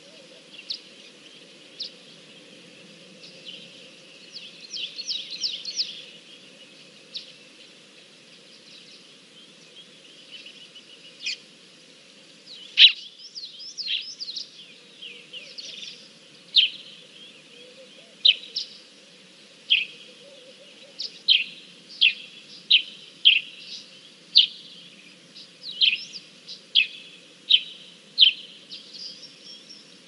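Wild birds calling: short, sharp high chirps that sweep downward. They come in quick flurries at first, then about once a second through the second half, over a steady low background noise.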